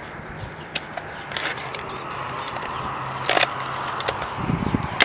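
Rustling of dry juniper twigs and close handling noise as dead growth is trimmed out of a potted blue rug juniper with hand pruners, with a few sharp clicks, the loudest a little past the middle.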